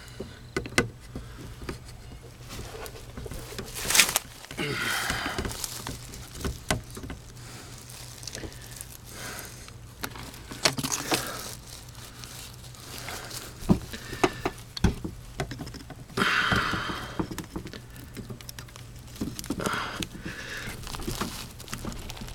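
Scattered knocks, clicks and rustling from someone working by hand on plumbing in the crawl space under a mobile home, with a few longer scraping bursts and a low steady hum underneath.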